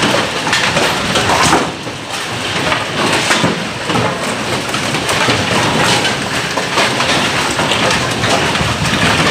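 Bowling pinsetter machinery running: a steady mechanical rumble with repeated clattering and knocks of pins and parts.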